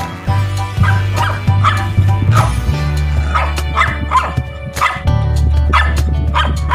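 Shih tzu puppy barking in short, high yaps, about two a second, over background music.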